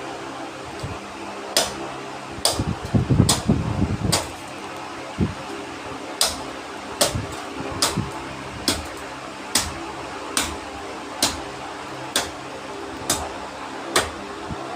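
A steady fan-like hum with sharp knocks over it, irregular at first and then evenly spaced, a little faster than one a second.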